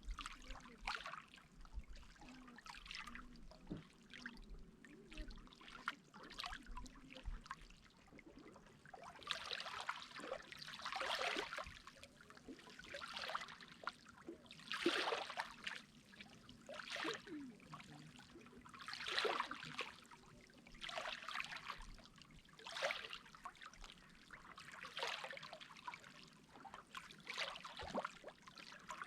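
Small sea waves splashing and lapping on the shore, with water trickling between them; a fresh splash comes every second or two, louder from about nine seconds in.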